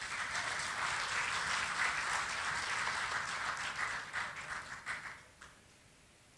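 Audience applauding. It dies away about five seconds in, with a last stray clap.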